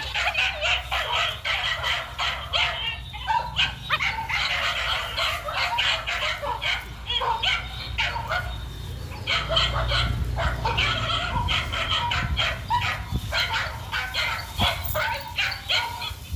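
Dogs barking over and over in quick succession, pausing briefly about three and a half seconds in and again about nine seconds in.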